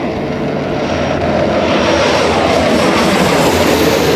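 Single-engine propeller floatplane flying low overhead, its engine and propeller drone growing louder as it approaches. The pitch drops as it passes over near the end.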